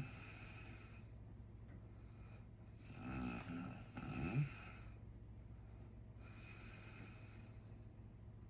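A man snoring in his sleep: a couple of buzzing snores about three to four and a half seconds in, between slow hissing breaths, over a steady low hum.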